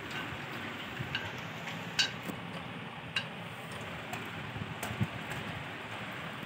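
A Labrador eating dry dog kibble from a steel bowl: irregular clicks and crunches as its teeth and the kibble knock against the metal, the loudest about two seconds in.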